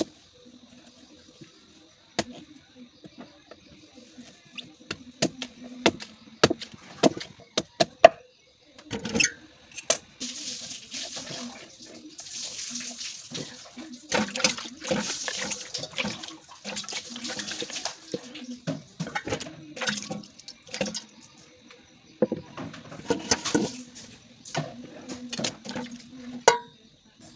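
Knife cutting slices off a fresh bamboo shoot, a string of sharp cracks, followed by longer stretches of high hissing noise with more knocks among them.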